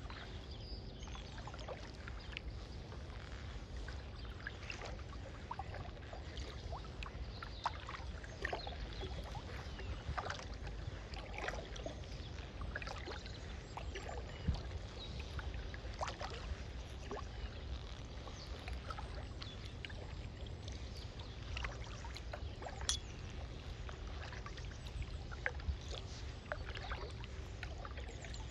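Kayak being paddled on calm water: small splashes and drips from the paddle, with scattered light clicks and knocks, over a steady low rumble.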